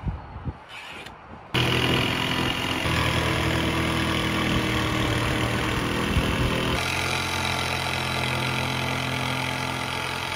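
Cordless Milwaukee jigsaw cutting plywood, its motor and reciprocating blade running steadily from about a second and a half in. A few light knocks come before it.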